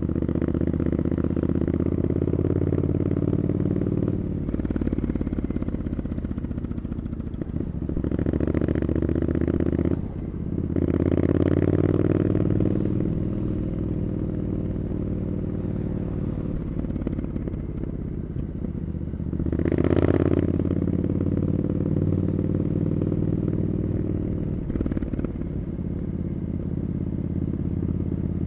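Triumph Scrambler 900's parallel-twin engine running through Arrow exhaust pipes while riding: the engine note rises and falls with the throttle several times, with short dips between, and a brief louder burst about two-thirds through.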